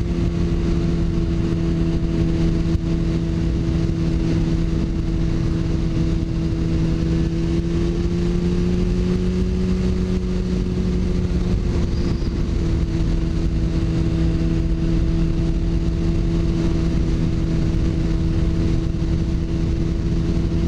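Sport bike's inline-four engine running at a steady cruising speed, its pitch rising slightly in the middle and then settling back, under a heavy rush of wind and road noise.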